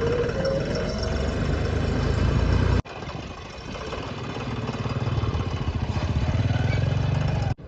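An engine running with a rapid, even firing beat. The sound cuts off abruptly about three seconds in, then resumes and grows slowly louder.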